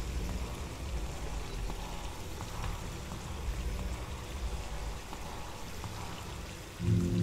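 Steady rushing noise with a low rumble and faint scattered ticks, like rain or running water. Music with low sustained tones comes in near the end.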